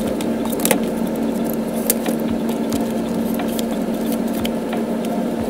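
A steady hum with a constant low tone. Light clicks and rustles of album paper and plastic sleeves are handled over it.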